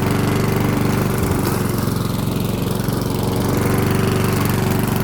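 Four-stroke petrol walk-behind lawnmower engine running steadily while mowing.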